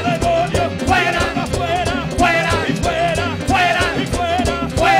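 Upbeat worship band music with a steady drum beat and a voice singing over it.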